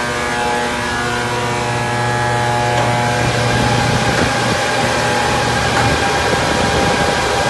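Large bank of cryptocurrency mining machines (ASIC miners) running together, their cooling fans making a loud steady whir with several steady tones through it. The sound turns noisier and fuller about three seconds in.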